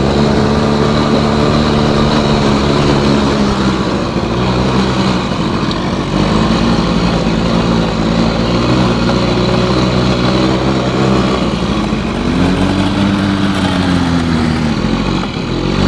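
ATV engine running with the throttle varied, its pitch rising and falling several times.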